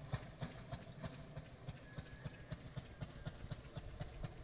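Engine of a small motorized rail trolley running with a steady, quick chugging beat of about five pulses a second as it moves off along the tracks.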